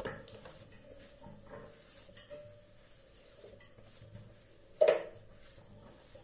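Kitchen handling sounds: a small knock at the start and a sharp, louder knock with a short ringing tail about five seconds in, as a utensil is set down or struck on the counter, over a faint steady hum.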